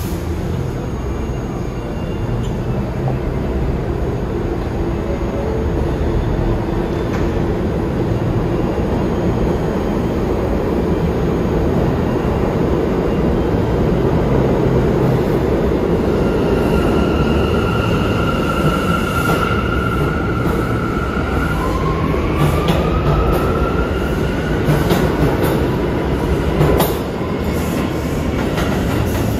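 New York City subway trains in an underground station: a steady rumble throughout, with a high wheel squeal held for several seconds midway, followed by a rising whine as a train's traction motors accelerate. A sharp knock sounds near the end.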